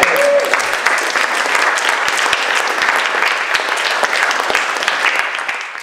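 Audience applauding: many hands clapping in a dense, steady patter that fades out near the end.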